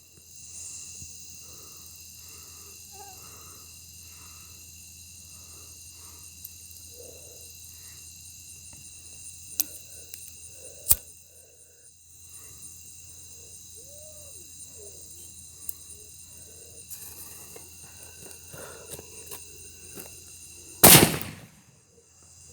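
Small firecrackers going off: a faint pop about ten seconds in, a sharp crack a second later, and a loud bang near the end.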